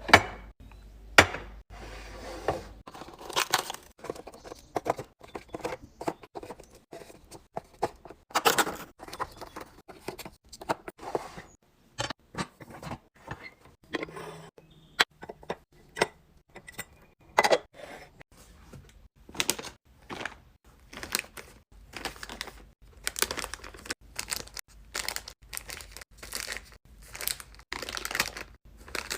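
Plastic packaging crinkling and tearing, mixed with irregular clicks and knocks as food items and containers are handled and set down while a fridge is restocked.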